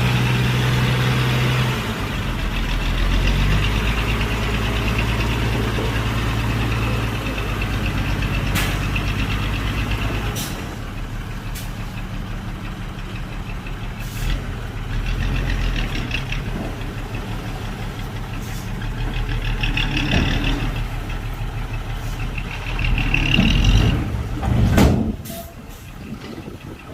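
Heavy diesel engine of earthmoving machinery running steadily, its speed shifting a few times, with scattered sharp metallic knocks and a louder burst near the end.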